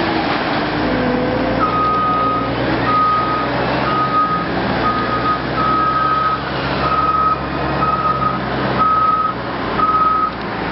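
Heavy diesel machinery running, with a reversing alarm beeping at a single pitch about once a second from shortly after the start.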